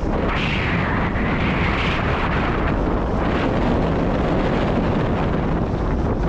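Wind buffeting an action camera's microphone as a mountain bike rides fast down a dirt trail, with the rumble of tyres rolling over the ground. A brighter hiss stands out for the first couple of seconds, then settles back into the steady rush.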